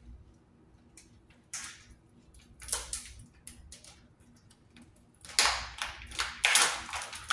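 A plastic food packet crinkling and crackling as it is pulled and torn open by hand: a few scattered crackles at first, then a dense run of loud crinkling from about five seconds in.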